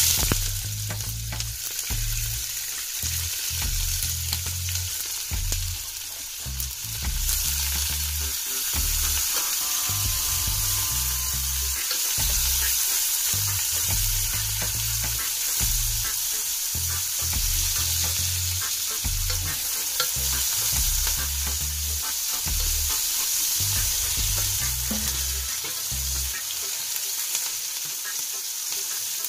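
Sliced onions and green seasoning sizzling in a hot stainless pot as they are stirred, a steady frying hiss that is loudest as they go in at the start.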